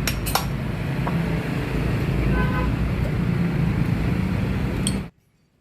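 Two-stroke Suzuki Satria motorcycle engine running steadily, with a few light clicks over it; the sound cuts off suddenly about five seconds in.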